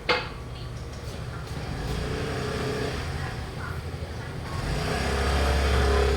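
A motor vehicle passing on the street, its low engine rumble swelling over the last second or two, with a single knock at the very start.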